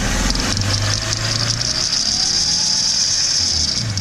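BMW M52B28 straight-six idling, with a steady, high-pitched whistling hiss over it that sets in just after the start and cuts off just before the end. The whistle comes from the belt tensioner pulley, which the owner suspects has a worn roller or bearing and which at times turns the whistle into a knock.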